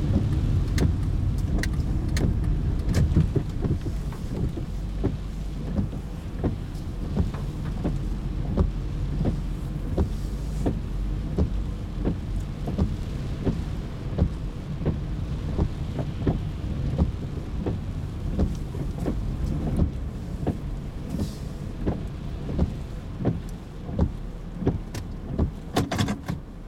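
Heavy rain heard from inside a car's cabin: drops strike the roof and windscreen as many irregular sharp taps over a low rumble of engine and tyres, which drops a little a few seconds in as the car slows.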